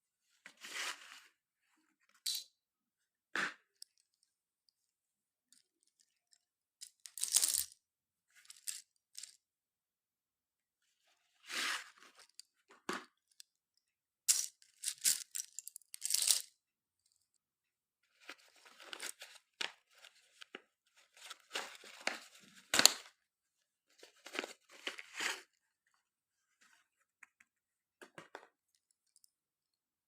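Slate pencils being bitten and crunched, in separate crisp cracking bursts with silent pauses between bites. The sharpest, loudest crack comes near the end.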